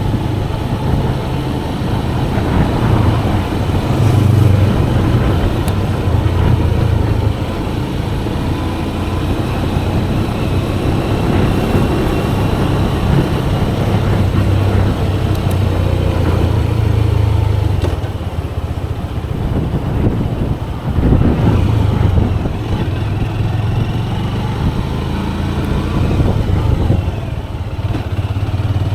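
Motorcycle engine running while riding, the revs rising and falling through the ride.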